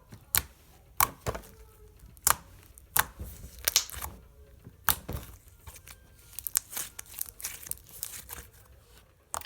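Glossy green glitter slime being stretched and squished by hand, giving irregular sticky pops and crackles.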